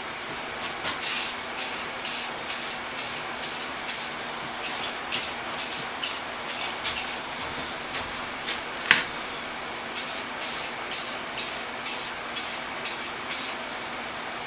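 Aerosol spray paint can hissing in a string of short bursts, roughly two a second, with a short break about halfway. A single sharp click about nine seconds in is the loudest sound.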